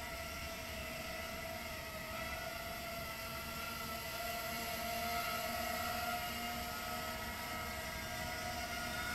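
Realacc RX130 mini quadcopter's brushless motors (1306 size, 3-inch three-blade props) whining steadily in flight, the pitch wavering slightly as the throttle changes. It grows a little louder about halfway through as the quad flies overhead.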